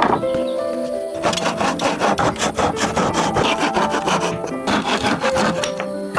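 Rapid, rhythmic rasping of wood on wood, starting about a second in and stopping near the end, over steady background music.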